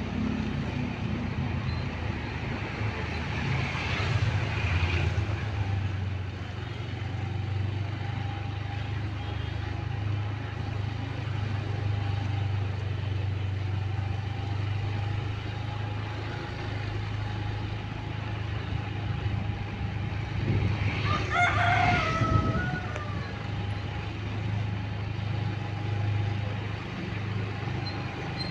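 A motorbike engine running steadily as it rides along, with a rooster crowing once about twenty-one seconds in.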